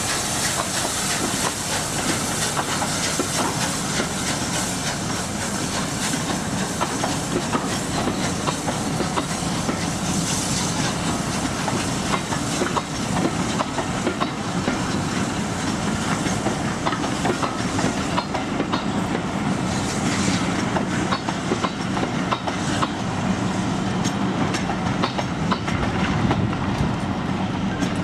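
Coaches of a steam-hauled passenger train rolling past, their wheels clicking over rail joints. A steam hiss from the locomotive runs underneath and fades about two-thirds of the way through.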